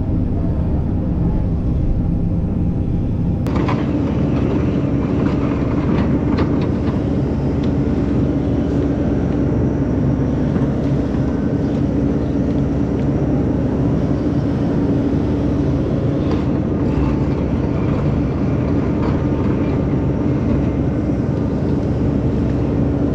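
Takeuchi TB2150 excavator running steadily under work. There is a click about three and a half seconds in, after which a steady higher hum joins the engine drone and holds.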